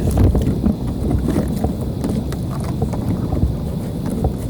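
Wind buffeting the microphone and water slapping against a kayak, with scattered small knocks and clicks.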